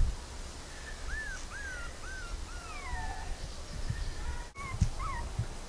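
Young puppies whimpering: three short rising-and-falling whines about a second in, then a longer whine that falls away, and two more short whines near the end.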